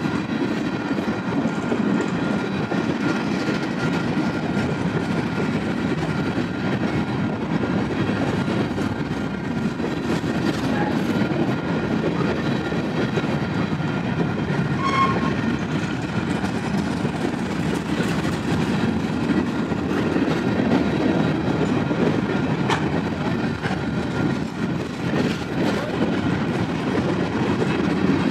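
Freight train's covered hopper cars rolling past, a steady, unbroken noise of steel wheels running over the rails.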